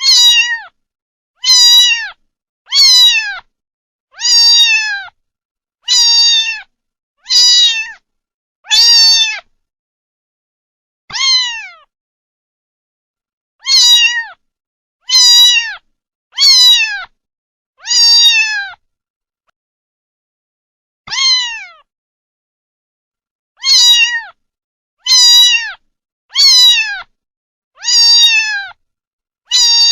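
A kitten meowing over and over: about eighteen short, high-pitched meows, each falling in pitch, with dead silence between them and a few longer pauses.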